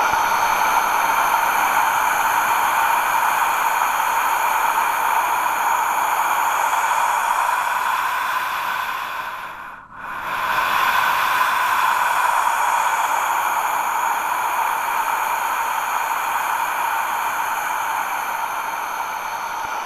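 Slow, amplified human breathing from an art installation's soundtrack: two long breaths, each a steady airy rush of about ten seconds, with a brief break halfway through.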